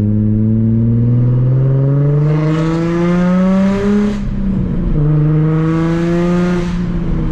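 Nissan 350Z's 3.5-litre V6 accelerating hard through the gears, heard from inside the cabin, its pitch climbing steadily. About four seconds in there is a gear change, the engine pulls up again, and then it eases off near the end. It runs through a Tomei Y-pipe and Invidia test pipes that replace the catalytic converters.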